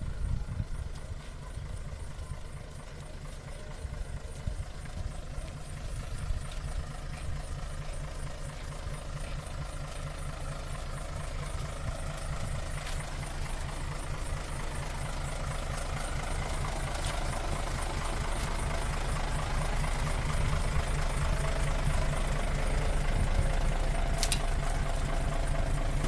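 A truck engine idling with a steady low rumble that grows slowly louder.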